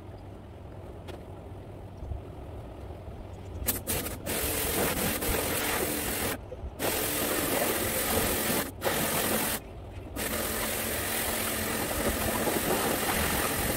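Pressure washer spraying water: a loud, steady hiss from the jet with the pump's hum beneath it. It starts about four seconds in and stops briefly three times as the trigger is let go and squeezed again.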